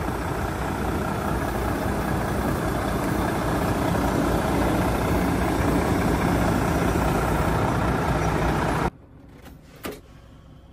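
Volvo FH truck's diesel engine idling steadily. About nine seconds in the sound cuts off abruptly to a quiet cab, with a single short knock about a second later.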